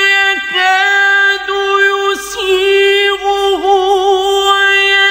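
A male voice reciting the Quran in drawn-out melodic style, holding a long high note with wavering ornamental turns and a few brief dips in pitch.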